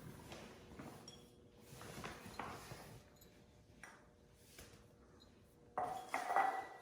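Household items being handled and set down: faint scattered knocks, then a short clink with a brief ringing tone near the end.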